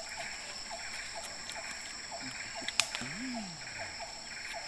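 Outdoor forest ambience: a steady high-pitched drone with a short call repeating about three times a second, and one sharp click near the middle.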